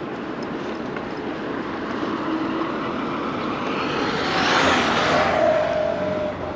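A car passes close by: its noise swells to a peak about four to five seconds in, with a slightly falling tone, then fades, over steady road and wind noise.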